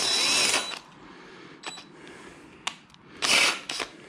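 Cordless drill with a Helicoil kit drill bit boring out a damaged bolt hole in a Suzuki DR-Z400's taillight mount, run in short, gentle bursts so the bit doesn't wander into an off-centre hole beside it. One burst of drilling stops just under a second in, a few clicks follow, then a second short burst about three seconds in.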